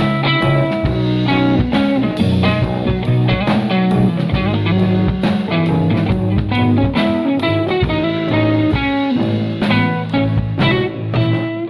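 A live band playing a guitar-led song: picked guitar lines over a steady drum beat.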